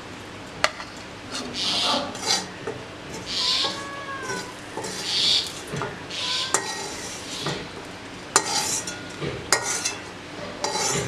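Metal spatula scraping fried okra out of a metal kadai into a bowl: repeated scrapes with several sharp clinks of metal against the pan.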